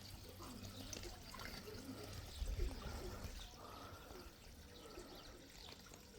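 Water pouring from a newly drilled water well, a faint steady splashing flow. There is a brief low rumble about two and a half seconds in.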